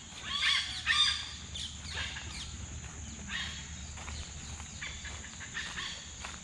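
Birds calling: a loud cluster of short, gliding calls about half a second and a second in, then scattered calls through the rest, over a steady high insect drone.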